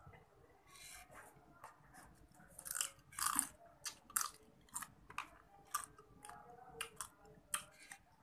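Close-up sounds of a person eating crab by hand, sucking and chewing the meat out of the shell: a run of sharp crunches and wet smacks, loudest about a third of the way in, then short clicks about once a second.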